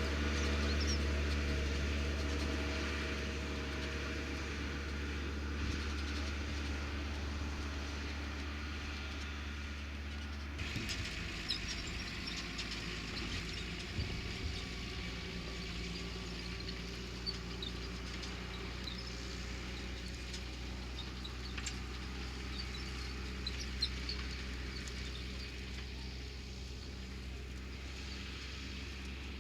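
New Holland tractor's diesel engine running steadily under load while ploughing. The engine note changes abruptly about ten seconds in.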